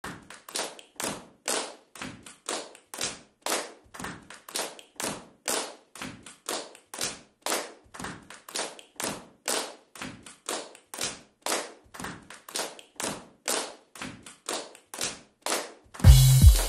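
Fingertip tapping on surfaces in a steady, even rhythm of about three light taps a second. Near the end an electronic dance beat with heavy bass cuts in, louder than the taps.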